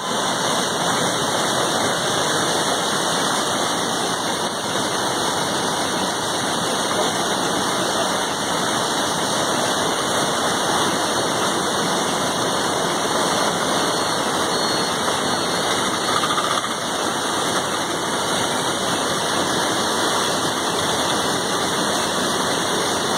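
Steady, unbroken noise of rushing water from heavy rain and flooding, even in level throughout.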